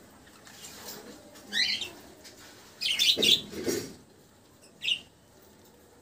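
Budgerigar giving a few short, high chirps: one about a second and a half in, a louder run of chirps around three seconds, and a brief one near the end.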